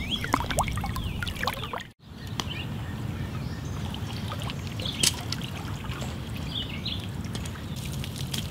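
Water trickling and sloshing at a lake's edge, with small birds chirping now and then and a brief drop-out about two seconds in.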